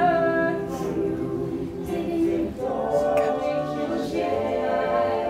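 Several voices singing together without instruments, holding long chords in harmony, with a brief lull about halfway through.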